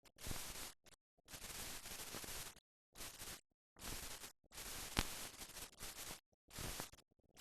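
Hiss and crackle from the blank soundtrack of a silent film, cutting in and out abruptly in blocks with dead silence between them, and one sharp click about five seconds in.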